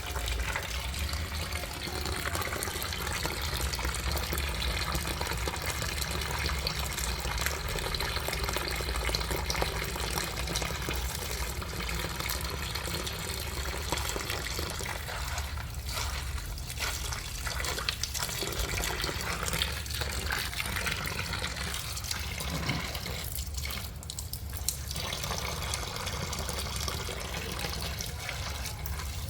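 Water running from a tap and splashing in a sink, a steady rush that thins briefly twice in the second half.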